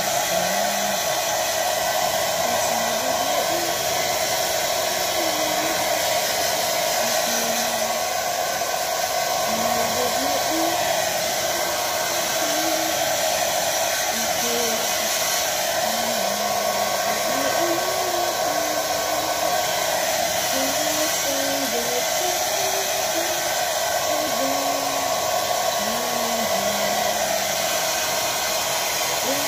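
Handheld hair dryer running steadily, blowing air over a small dog's fur.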